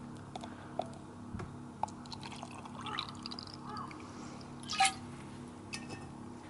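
Sake poured from a glass bottle into a plastic cup, gurgling and rising in pitch as the cup fills, with a few light clicks beforehand and a sharper knock near the end.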